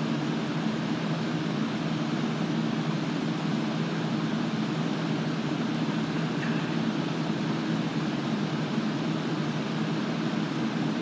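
An air conditioner running with a loud, steady low hum and rush of air that does not change.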